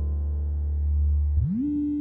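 Synthesized electronic tones: a low, steady, buzzy note that glides up in pitch about one and a half seconds in and settles on a higher held note.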